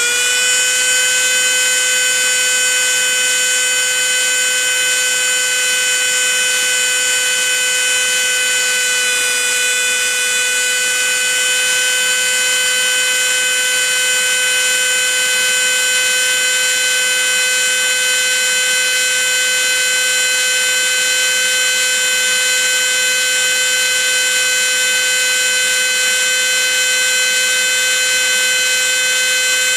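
Small high-speed tool-post grinder on a clockmaker's lathe, its abrasive wheel grinding the end of a steel clock arbor down for a new pivot. It gives a loud, steady, high-pitched whine that settles right at the start after a rising spin-up.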